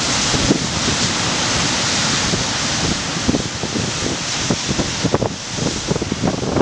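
Heavy Pacific surf breaking and washing onto a beach, a loud steady rush, with wind gusting against the microphone.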